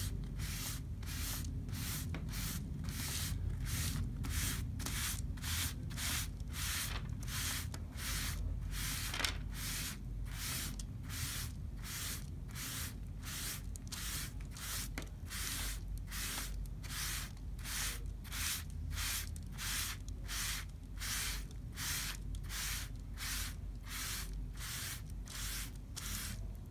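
Rag rubbing back and forth over wet raw umber oil paint on tracing paper: an even swish about twice a second. The rubbing wipes off excess paint to leave a thin, transparent layer for a transfer.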